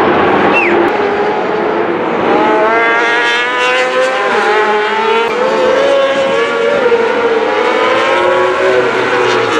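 Several superbike racing motorcycle engines at high revs, passing through a corner. Their pitch rises and falls with the gear changes and throttle, and several engines overlap from about two seconds in.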